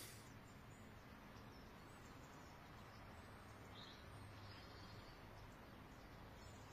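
Near silence: faint outdoor background hiss with a low hum, and one brief, faint high chirp a little before the four-second mark.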